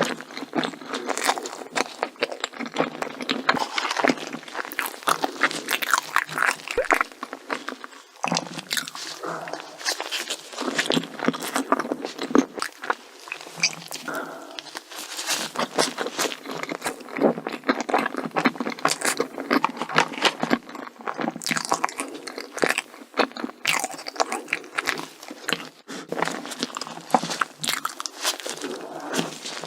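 Close-miked crunching and chewing of chocolate desserts: a dense, irregular run of crisp bites and crackles.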